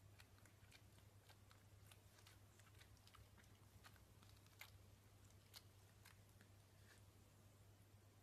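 Near silence: a faint low hum with soft, irregular clicks scattered through it.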